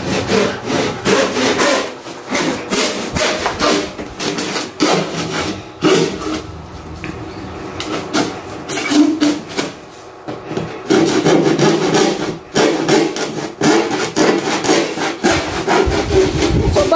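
Handsaw cutting through a plastic PVC ceiling panel: repeated back-and-forth sawing strokes, easing off briefly midway.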